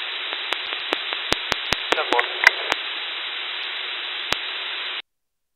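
Radio static from an RTL2832U software-defined radio receiver tuned to an idle UHF channel near 454.1 MHz: a steady hiss broken by irregular sharp clicks, with a few brief faint garbled fragments about two seconds in. The hiss cuts off suddenly about five seconds in.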